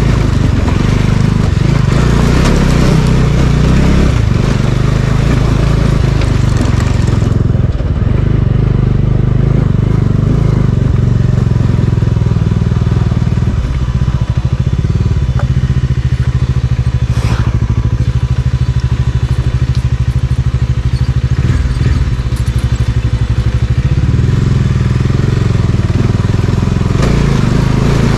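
Vehicle engine running continuously, driven over a rough off-road track.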